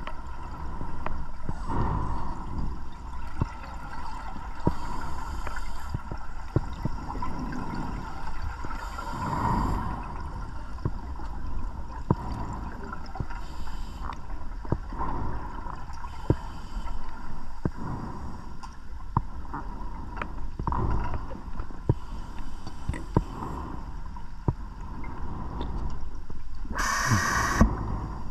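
Underwater sound of scuba breathing: short hissing inhalations through a regulator and bubbling exhalations recurring every few seconds, the loudest hiss near the end, with scattered sharp clicks over a steady underwater hum.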